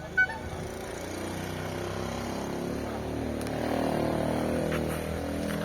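A short horn-like beep at the very start, then a motor vehicle engine passing by, growing louder to a peak about four seconds in and then easing off.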